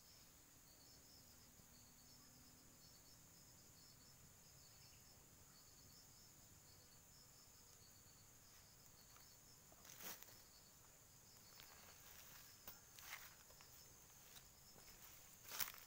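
Faint insects chirping steadily in a high, evenly pulsing trill over a constant high hiss. A few sharp pops and crackles from the small wood fire under the cooking pot come about ten seconds in and again near the end, the last one the loudest.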